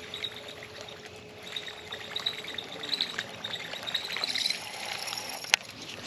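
A buzzbait being reeled back across the surface, its blade churning and gurgling on the water, with a steady high squeak and the baitcasting reel being cranked. A single sharp click about five and a half seconds in.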